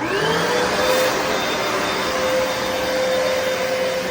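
Hoover PowerDash Pet FH50700 carpet cleaner switched on: its motor spins up with a rising whine over about the first second, then runs steadily, a noisy whine over a rush of air.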